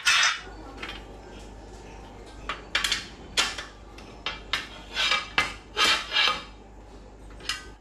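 Metal clinks and knocks of hand tools and bolts against the steel angle brackets of an AC outdoor-unit wall stand as it is bolted together: about a dozen irregular, sharp strikes starting about two and a half seconds in.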